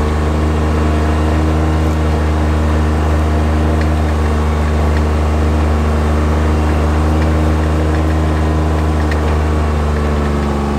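John Deere Gator utility vehicle's engine running at a steady low speed, heard from inside its cab, a loud, even drone as it tows a magnet sweeper slowly across the pasture.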